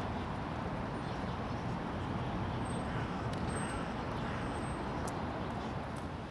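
Steady outdoor city background noise: a continuous hum of distant road traffic with no single event standing out.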